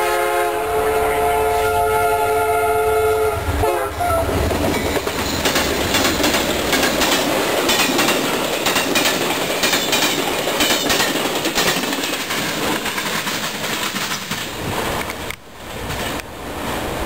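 Amtrak passenger train passing close at speed. The locomotive's multi-tone air horn sounds a chord for about the first four seconds. Then comes a loud rush of wheels over the rails with rapid clicking at the rail joints, which drops away near the end as the last car passes.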